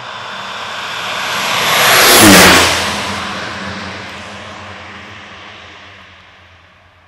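Air Tractor 502 crop duster's Pratt & Whitney PT6A turboprop passing low overhead. The engine and propeller noise builds, peaks about two seconds in with a drop in pitch as the plane goes over, then fades away as it flies off.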